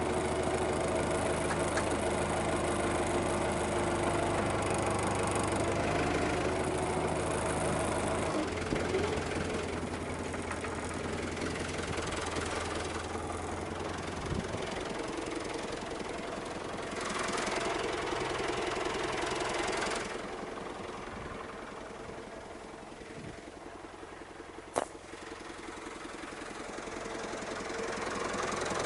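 Tractor engine running steadily. It quietens for several seconds past the middle, then grows louder again near the end. A single sharp click sounds a few seconds before the end.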